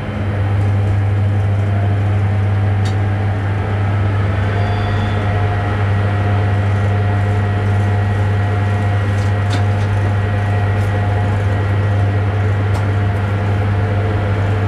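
Running train heard from inside the driving cab: a steady low hum over continuous running noise, growing louder at the very start, with a few faint clicks.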